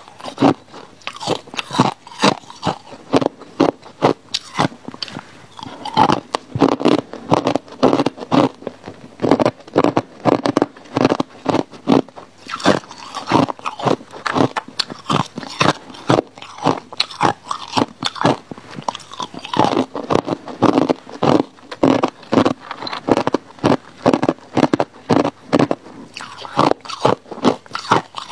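Hard ice chunks being bitten and crunched between the teeth, a steady run of sharp cracking crunches, a few each second, with chewing in between.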